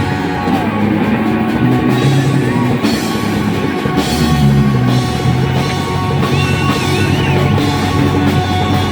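Rock band playing: electric guitar, bass and drum kit, with a lead guitar playing wavering held notes with vibrato from about six seconds in.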